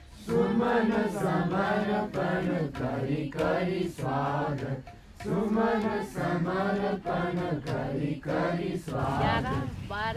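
Voices singing a chant-like song, phrase after phrase with short breaks, with no instruments clearly heard.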